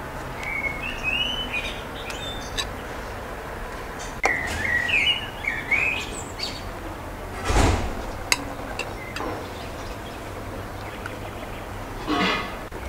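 Small birds chirping in short, quick phrases, in two bouts, over a steady low background hum. A few sharp clicks and two brief rushes of noise come in between.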